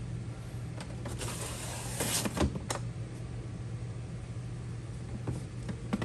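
Telescoping handle of a Milwaukee Packout rolling tool box being pushed down into its frame: a rasping slide lasting about a second and a half, with a few light clicks and knocks around it.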